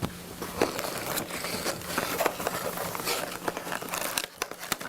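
Paper and packaging rustling and crinkling as documents and boxes are handled, with many small irregular clicks and taps.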